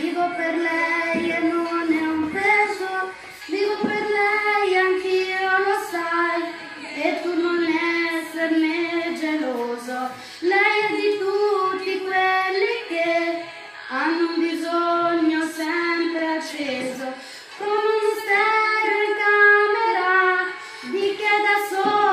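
A woman's voice singing a song unaccompanied, in phrases a few seconds long with held, wavering notes and short breaths between them.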